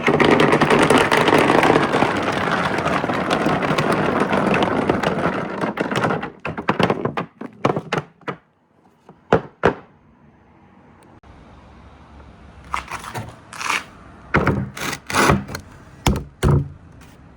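Many marbles rolling and clattering together down a four-tier marble-run slope: a dense, continuous rattle for about six seconds that thins into scattered clicks as the last marbles come down. Later, a few separate sharp clacks of marbles knocking.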